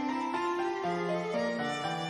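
Instrumental background music in a classical style, with several melodic lines moving note by note at a steady level.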